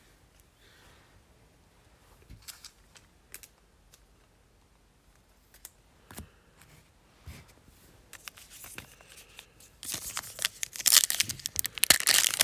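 A few faint clicks and taps of cards and boxes being handled, then from about ten seconds in a loud crinkling and tearing as an NBA Hoops Premium Stock foil trading-card pack is ripped open.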